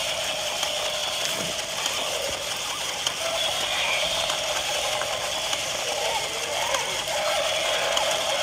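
Battery-powered walking toys running, their small gear motors whirring steadily with a light ratcheting rattle.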